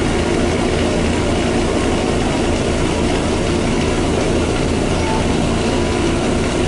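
Steady engine running and body rattle of a moving bus, heard from inside the passenger cabin.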